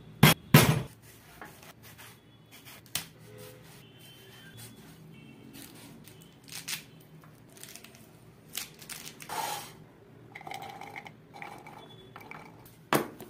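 Two pomegranates thudding onto a wooden cutting board, the loudest sounds. Then comes the crackle and scrape of the scored rind being broken apart by hand. Near the end, loose pomegranate arils patter into a plastic blender cup, with a sharp knock at the very end.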